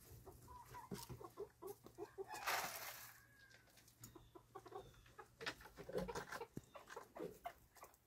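Silkie chickens clucking softly as they come out of their coop, while the coop's wooden door is swung open, with a scrape about two and a half seconds in.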